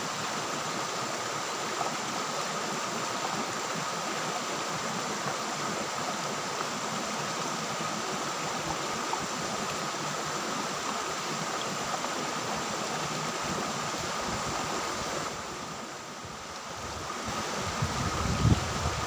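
Shallow river water rushing steadily over rocks and small rapids. Near the end the sound dips briefly, then a few low thumps come through.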